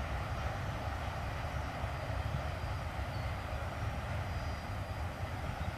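Distant freight train of autorack cars rolling past, a steady low rumble with no breaks.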